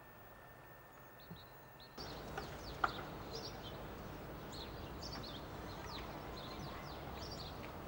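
Small birds chirping in many quick falling calls over a steady background hiss, which gets louder about two seconds in. A single sharp click comes just before three seconds.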